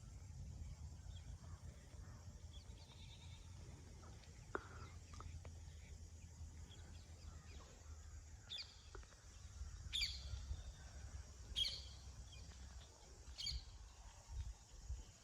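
Outdoor rural ambience: scattered bird chirps over a steady low rumble. One call slides downward about a third of the way in, and a few sharp, high chirps come in the second half.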